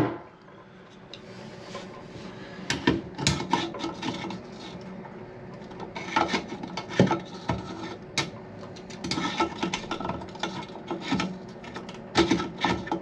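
Plastic lock nut being tightened onto a toilet fill valve's threaded shank, making irregular scraping, rubbing and clicking in several short bouts.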